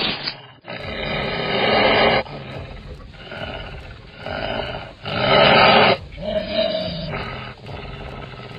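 Deep growling and roaring of a pack of timberwolves (wolf-like monsters made of wood), four long growls one after another, the loudest about five seconds in.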